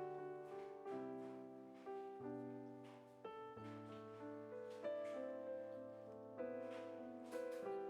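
Background piano music: a slow melody over held chords, each note struck and then fading.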